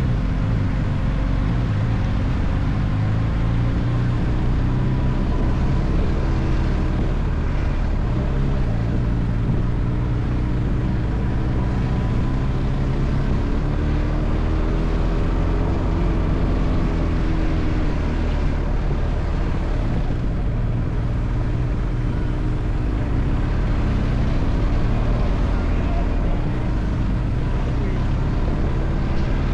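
A vehicle's engine running under steady road noise, its pitch rising and falling a little as the speed changes.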